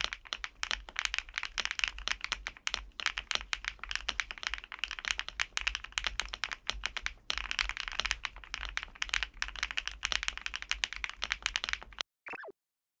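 Fast continuous typing on a LUMINKEY75 V2, a gasket-mounted aluminium-bodied mechanical keyboard: dense, irregular keystroke clicks. Near the end the typing stops and a short falling whoosh follows.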